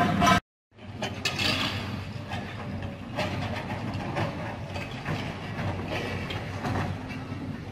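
Demolition excavators working: a steady engine hum with scattered clanks and knocks. The sound cuts out briefly about half a second in.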